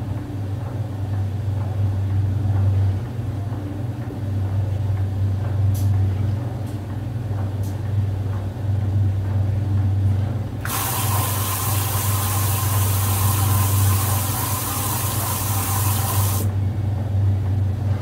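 Brastemp Luxo Linea Venezia 4 kg top-load washing machine running with a steady low motor hum that swells and eases every second or two. About ten seconds in, water rushes in through the inlet valve with a hiss for about six seconds, then cuts off suddenly.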